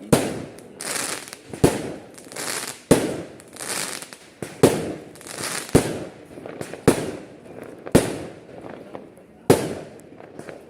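Aerial fireworks bursting in a steady sequence: about eight sharp bangs, roughly one every second and a bit, each trailing off in about a second of hiss.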